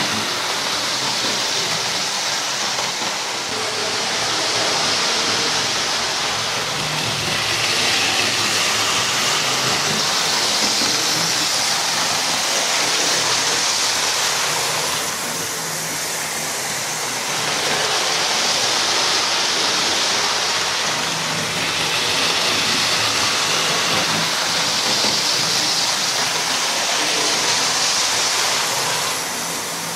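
Hornby Class 43 HST model train running round the layout: a steady rushing of its wheels on the rails and its motor, swelling and fading as the train comes nearer and moves away.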